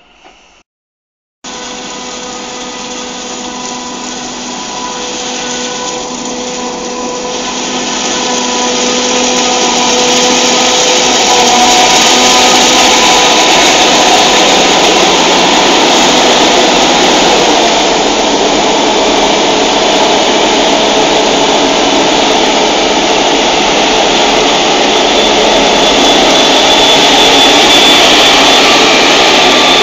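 Claas Jaguar 980 self-propelled forage harvester chopping maize: a loud, steady machine noise of engine and cutterhead, with a whine and a rushing hiss. It starts suddenly after a brief faint moment, grows louder over the first ten seconds or so as the machine comes close, then holds steady.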